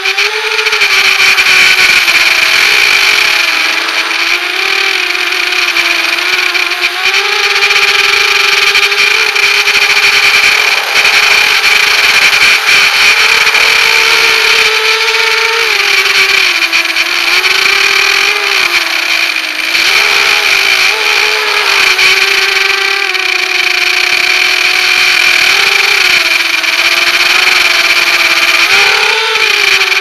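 Racing quadcopter's electric motors and propellers whining, heard close from the onboard camera, the pitch rising and falling every few seconds with the throttle.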